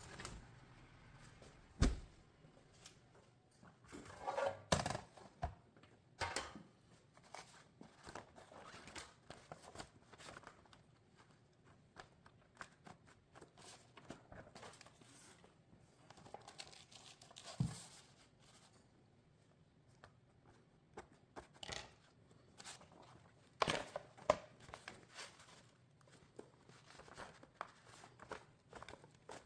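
Irregular handling sounds of empty plastic shotgun shells being worked by hand: scattered small clicks, knocks and crinkling, with a sharp knock about two seconds in and clusters of louder knocks around a quarter and three quarters of the way through.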